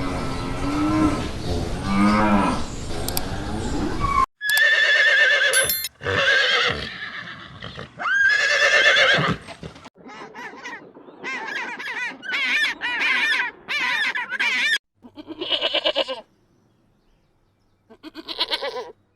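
A run of farm animal calls cut together: a low, drawn-out call over the first four seconds, then louder, higher-pitched calls, and after about ten seconds a string of short calls in quick succession.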